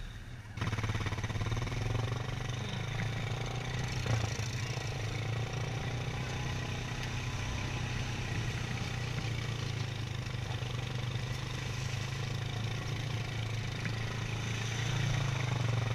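ATV engine running at a steady pace while riding, a constant low drone that comes in about half a second in.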